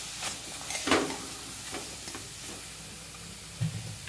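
Metal spatula stirring chopped onions, tomatoes and spice powders in an aluminium kadai, scraping against the pan in a few short strokes, the loudest about a second in, over a steady sizzle; a brief low knock near the end.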